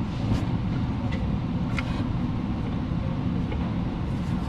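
A steady low machine hum runs throughout, with a few faint clicks and light knocks as the transmission on its jack is tilted and handled.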